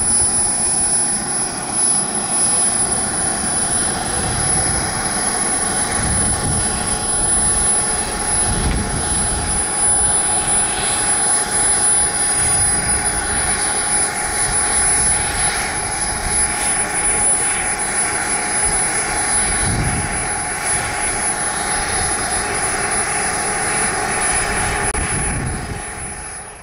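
Small gas turbine of a Skymaster Viper model jet running on the ground, a steady high-pitched whine over a rushing jet noise as the model taxis. The sound fades out near the end.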